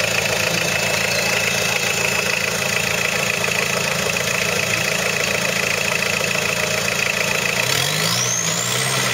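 Engine of a modified off-road 4x4 running steadily at low revs as the vehicle crawls over roots and rocks. A faint steady high tone runs underneath, and a high-pitched rising glide comes in near the end.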